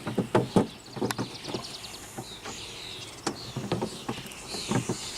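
Irregular light knocks and clicks of wooden beehive parts being handled during the inspection, with faint bird chirps and a short, fast high trill a little over a second in.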